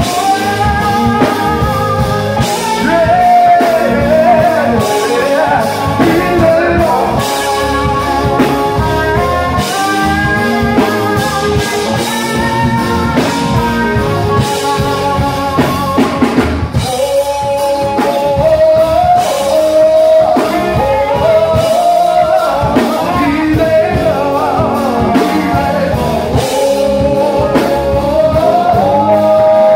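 Live band music: a pedal steel guitar playing sliding lead lines over a drum kit and bass.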